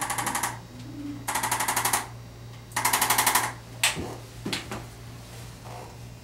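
Arthrostim handheld chiropractic adjusting instrument firing three short bursts of rapid mechanical tapping, each under a second long, followed by a couple of single clicks.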